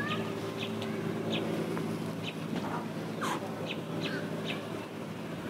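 Small birds chirping in short, scattered calls over a steady low mechanical hum.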